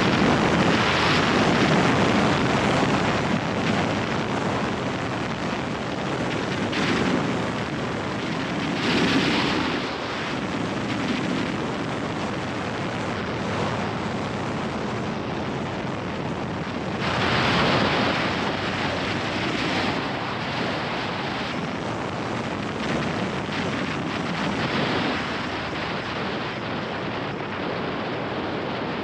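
Wind rushing over a helmet-mounted camera's microphone at riding speed, with the Royal Enfield Interceptor 650's parallel-twin engine running underneath. The rush swells a few times, near the start, about nine seconds in and again around seventeen to nineteen seconds in.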